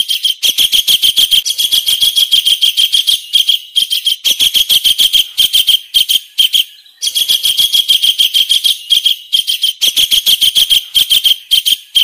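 Kingfisher call: a fast run of sharp, loud, repeated notes, about six a second, high-pitched. It breaks off briefly about seven seconds in and then starts again.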